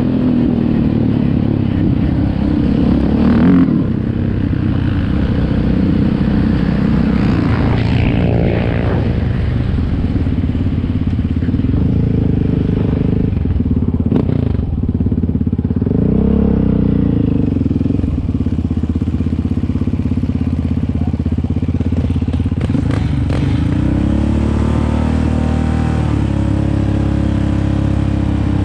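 Yamaha Raptor 700 quad's single-cylinder four-stroke engine running hard, its revs rising and falling again and again as it is ridden along a dirt track.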